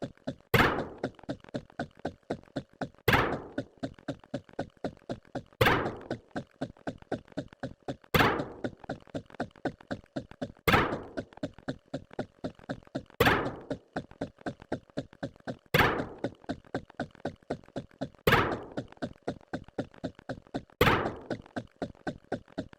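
A rapid, evenly paced run of short thunk-like knock sound effects, several a second, with a louder hit about every two and a half seconds.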